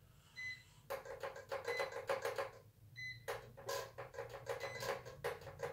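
Short electronic beeps from a toy quadcopter's radio remote controller, three of them about a second and a half apart. They are mixed with a rapid, uneven run of clicks that starts about a second in and pauses briefly about three seconds in.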